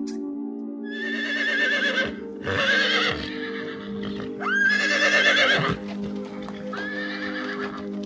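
A horse whinnying four times. Each call is about a second long and wavers in pitch, and the middle two are the loudest. Steady background music plays underneath.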